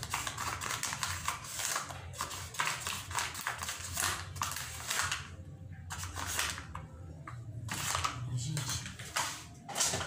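A spoon scraping and tapping inside a small plastic cup as bottled butter is scooped out: a quick irregular run of clicks and scrapes, with a couple of short pauses about halfway through.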